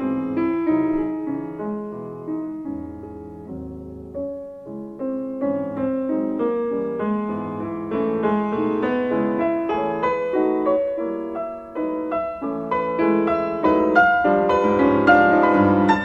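Piano music, a steady run of notes that softens about four seconds in, then gradually grows louder toward the end.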